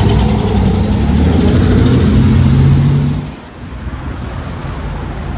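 A road vehicle's engine running close by, a loud, steady low hum that cuts off suddenly about three seconds in. After it comes quieter outdoor noise.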